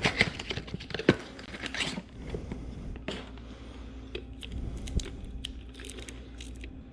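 Crinkling, tearing and clicking of hands handling a new oil filter and its cardboard box, busy for the first two seconds and then scattered clicks.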